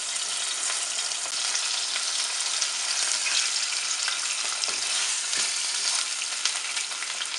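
Two whole tilapia sizzling steadily as they shallow-fry in hot oil in a non-stick pot, being browned on both sides. A few light taps and scrapes of a spatula turning them.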